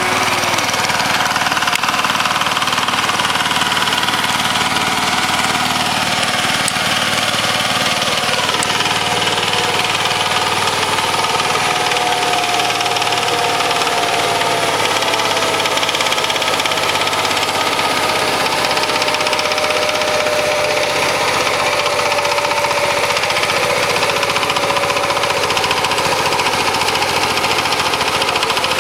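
Walk-behind power tiller's single-cylinder diesel engine running steadily while ploughing, with a tone that drifts slowly lower partway through.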